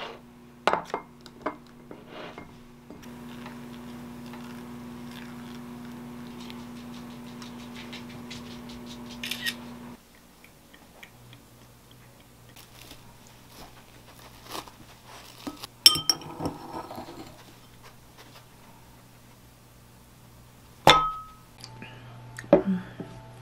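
Glass and ceramic clinking on a table as iced pour-over coffee is made: a ceramic dripper, a glass mug of ice cubes and a metal kettle handled and set down. There are scattered light clinks and a few sharper knocks. A steady hum runs for several seconds and then stops abruptly.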